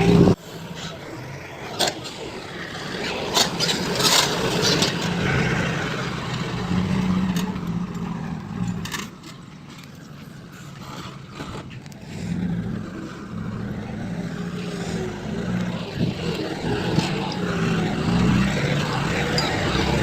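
Heavy diesel construction machinery running and working, its engine rising and falling in level, with scattered metallic knocks and scrapes.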